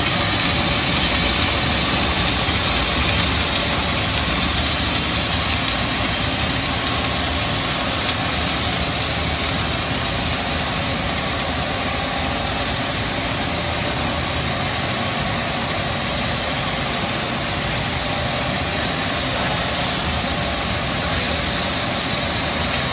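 Snack production-line machinery running: a steady, dense mechanical noise with faint steady whines and no let-up.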